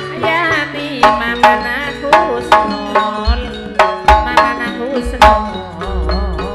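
Live Madurese gending music: a wavering melodic line over sustained tones, then sharp hand-drum strokes about twice a second from about a second in, with deep bass drum strokes joining about halfway through.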